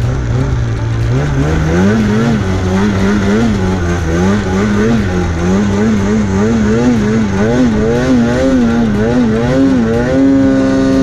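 Snowmobile engine running under load in deep powder. Its pitch climbs about a second and a half in, then rises and falls again and again as the throttle is worked, and settles into a steady higher note near the end.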